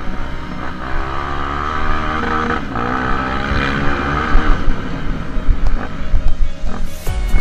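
Honda XR 250 Tornado's single-cylinder four-stroke engine revving up and down under racing load on a dirt motocross track, heard from a camera mounted on the bike, with heavy wind and track rumble on the microphone.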